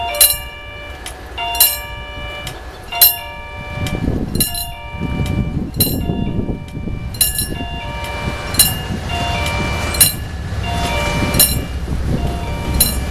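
Railroad crossing warning bell striking about once every second and a half, each strike ringing in several tones. From about four seconds in, the low rumble of an approaching train builds beneath it.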